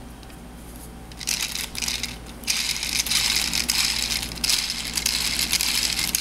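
Close crinkling and rustling handling noise with many small crackles, starting about a second in and getting louder about two and a half seconds in.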